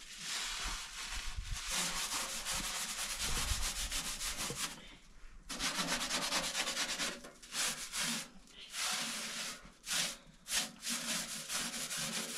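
Hand rubbing and wiping the surface of a round iron bread griddle (saj) set over the fire, a dry scrubbing sound. It runs steadily at first, stops briefly near the middle, then goes on in shorter, uneven strokes.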